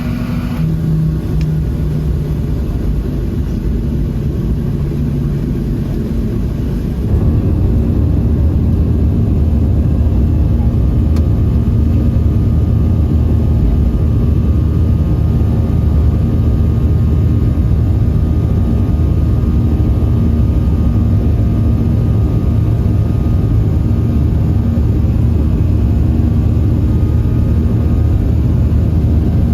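Cabin noise of a Boeing 737-700 airliner, its CFM56-7B jet engines making a steady low rumble that steps up louder about seven seconds in and then holds steady.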